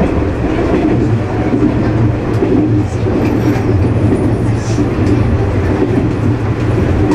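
JR West 103 series electric train running on the track, a steady rumble of wheels on rail under a low motor hum.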